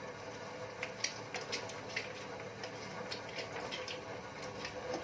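Half a lemon being squeezed by hand, its juice dripping and spattering in a run of small, irregular wet ticks, over a steady hum.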